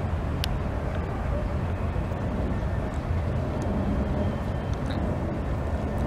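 Steady low rumble of distant city traffic, with a brief high click about half a second in.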